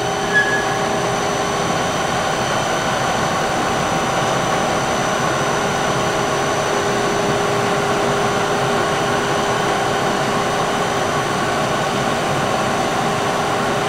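SMTW H163 plain cylindrical grinder running: its 15 hp grinding wheel motor, wheel spindle and hydraulic table feed make a steady hum with a faint high whine.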